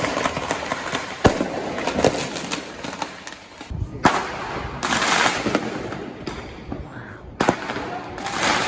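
Consumer fireworks exploding: three sharp bangs stand out, about a second in, about four seconds in and about seven seconds in, among smaller cracks and crackling bursts.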